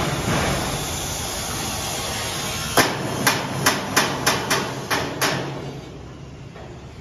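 Hammer striking a stainless steel frame eight times, about three blows a second, each with a bright metallic ring. A steady hiss comes before the blows and stops when they start.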